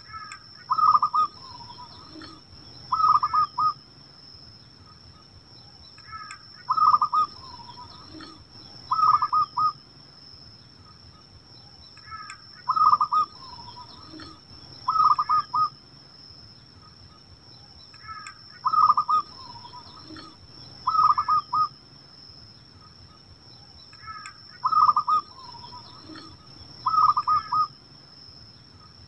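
Zebra dove (perkutut) cooing its rolling song. A bout of two short phrases comes about every six seconds, five bouts in all. A steady high-pitched whine runs underneath.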